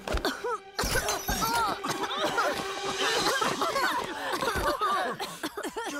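Cartoon soundtrack: a sudden crash-like burst of sound effect about a second in, then a run of short groaning and gagging voices reacting to the stink of a fart.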